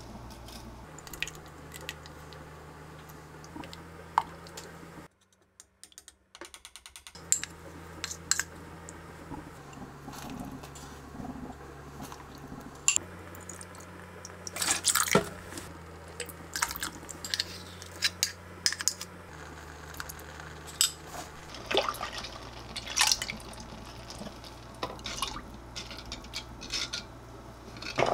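Ingredients being measured into a clay pot of broth: a plastic measuring spoon clinking and tapping, and cooking sake and mirin poured from a bottle and dripping into the pot. Short sharp clicks come scattered throughout, thickest around the middle and again later, over a steady low hum that cuts out for a moment about five seconds in.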